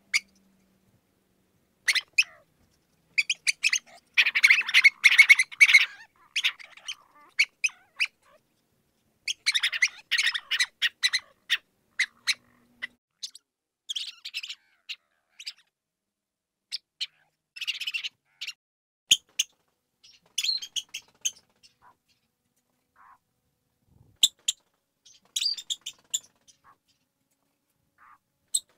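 Mouse squeaking: clusters of short, sharp high-pitched squeaks with silent gaps between, busiest about four and about ten seconds in.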